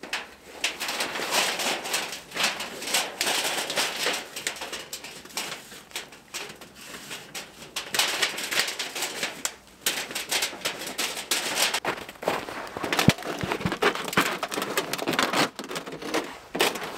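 Telescoping metal tent-stove chimney pipe being pulled out and handled: metal sliding and scraping with rapid clicks and clinks, pausing briefly a few times.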